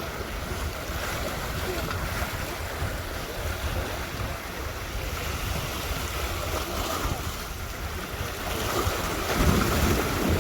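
Wind buffeting the microphone over a steady wash of surf, growing louder near the end.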